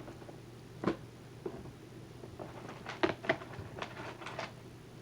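Fidget toys being handled: a few scattered light taps and clicks, one about a second in, then a quick cluster of several near the middle and later.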